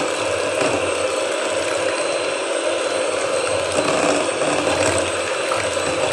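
Electric hand mixer running steadily, its beaters whisking a runny mixture of milk and mango purée in a glass bowl.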